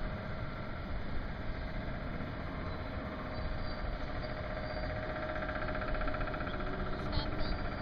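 Steady, faintly pulsing drone of a distant engine, low in level, over open-air background noise.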